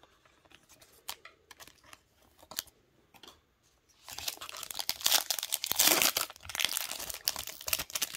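Faint clicks and plastic rustling as a card is handled with a clear penny sleeve, then, about halfway through, a foil trading-card pack wrapper being torn open and crinkling loudly.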